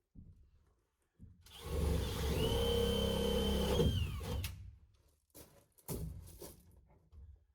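Power drill boring a hole through wood framing: the motor runs under load for about three seconds with a steady whine, then winds down, followed by a few short knocks.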